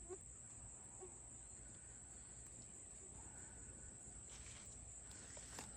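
Faint steady insect trilling at one high pitch, with a few soft rustles near the end.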